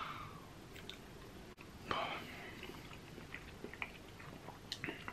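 A person chewing a mouthful of soft tinned burger in gravy, faint, with small scattered mouth clicks.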